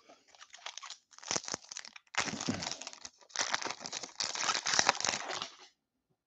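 A foil-wrapped trading-card pack being torn open by hand, its wrapper crinkling and tearing in several rustling bursts that stop shortly before the end.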